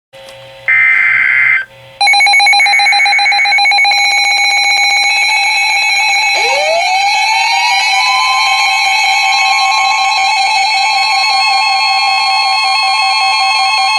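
Emergency Alert System alert tones from weather radios: a short burst of screechy data tones about a second in, then a loud steady two-tone alarm from about two seconds, joined about six seconds in by a second tone that swoops up and holds at a higher pitch. The tones signal a severe thunderstorm warning about to be read.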